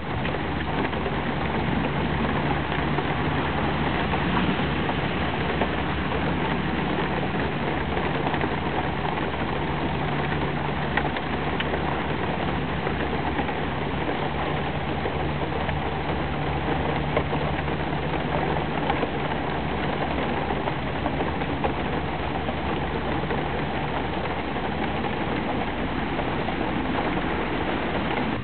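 Steady rain, an even hiss with no break, with a constant low hum underneath.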